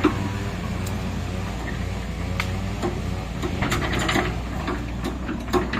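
Excavator's diesel engine running steadily, with scattered metallic clanks and knocks, a cluster of them in the middle and another near the end.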